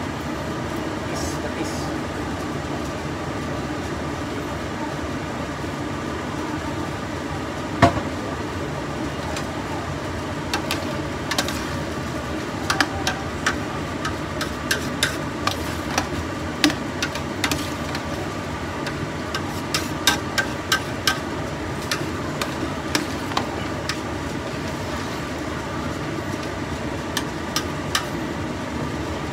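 A metal utensil stirring in a large stainless-steel pot of sautéing beef and aromatics: one sharp knock against the pot about eight seconds in, then frequent light clinks and scrapes, over a steady hum.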